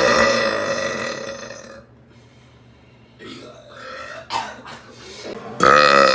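Loud human burps. A long one fades out over the first two seconds, then a few faint short sounds, and another long loud burp with a wavering pitch starts near the end.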